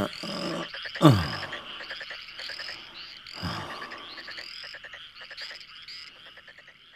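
Frogs croaking in a steady chorus, with a short high chirp rising in pitch every half second or so. A loud downward-sliding sound cuts in about a second in, and a fainter one comes midway.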